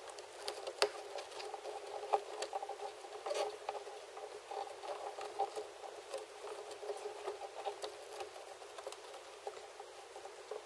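Rustling and scraping of a plastic cowl trim piece being worked into place by hand, with a few sharp clicks of plastic against plastic.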